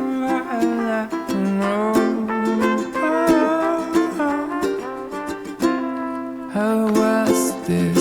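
Background music: a song led by ukulele with plucked notes.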